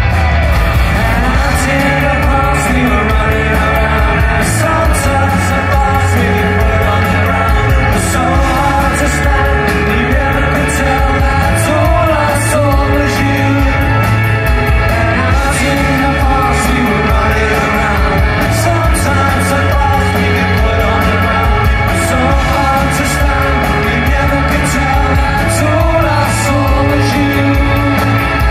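Indie rock band playing live through a big PA: drums, bass and electric guitars, with a singer over the top. The mix is loud and steady throughout.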